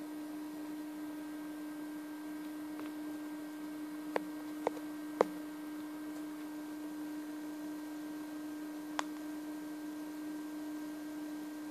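A steady hum with one constant low tone, broken by three sharp clicks about four to five seconds in and a fourth near nine seconds.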